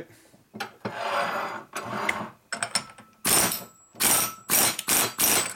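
Air impact wrench hammering on a nut of a Harley-Davidson knucklehead crankshaft flywheel assembly, breaking it loose to split the flywheels. First a lighter, quieter run, then four loud short bursts about half a second apart in the second half.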